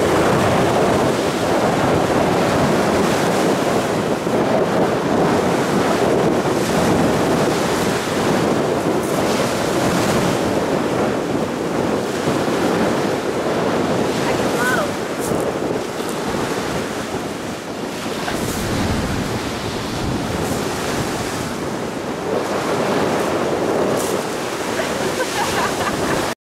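Choppy, wind-driven waves breaking on a pebble beach, with gusty wind buffeting the microphone.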